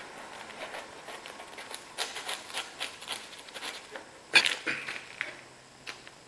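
Knife sawing through a crusty baguette: a quick run of crunchy crackles as the crust breaks, then one loud clink with a short ring as the knife hits the plate about four and a half seconds in.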